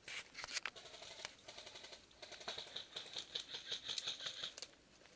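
Airsoft rifle firing rapid full-auto bursts, a fast mechanical clatter of shots: two short bursts in the first second and a half, then a longer burst from about two seconds in that stops suddenly near the end.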